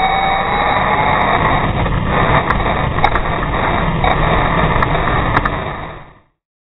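Onboard sound of an R/C monster truck running on concrete: a steady, noisy rumble of drivetrain and tyres with scattered sharp clicks. It fades out about six seconds in.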